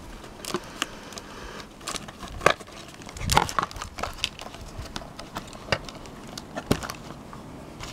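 Cardboard box and plastic packaging being handled while a small plastic toy horse is worked free: scattered clicks, taps and crinkles, with a louder cluster of knocks about three seconds in.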